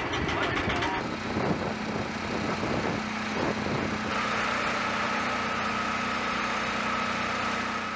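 Portable aircraft ground heater's small engine running steadily. About four seconds in, a steady high whine joins the engine note.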